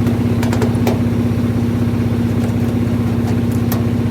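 A steady, loud mechanical drone like a running motor, with a few light clicks over it.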